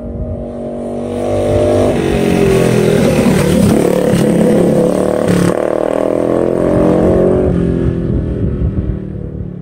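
Coleman CT100U mini bike with a 212 cc Hemi single-cylinder engine and aftermarket exhaust passing at speed. It builds to its loudest over the first two seconds, then fades as it rides away. A sharp crack about five and a half seconds in is an exhaust backfire from the baffled pipe as the throttle is let off.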